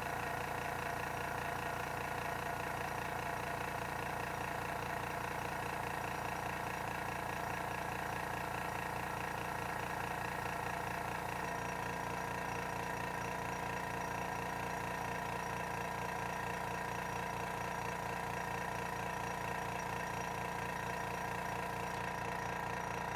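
Small airbrush compressor, the Spraygunner no-name 2D, running continuously with a steady fast pulsing hum; its tone shifts slightly about halfway through.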